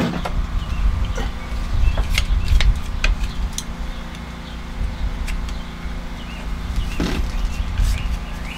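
A steady low rumble with scattered light clicks and knocks of a length of PEX pipe being handled, and a few bird chirps.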